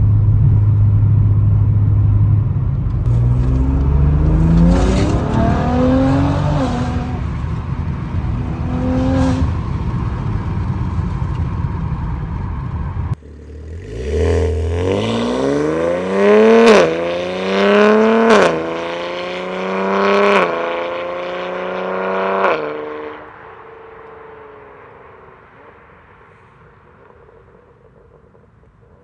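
BMW S58 twin-turbo inline-six with a titanium equal-length X-pipe exhaust and catless downpipes, accelerating hard through the gears. Pitch rises and drops back at each quick upshift. About 13 seconds in there is a sudden cut to a second full-throttle pull with four upshifts, which then fades away as the car drives off.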